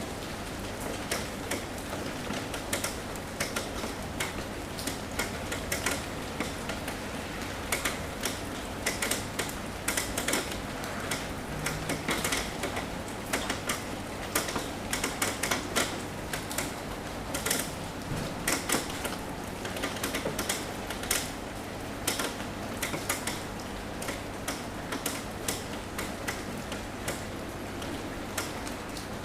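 Rain tapping on a roof: a steady patter of drops under irregular sharp taps, several a second, with a faint low hum beneath.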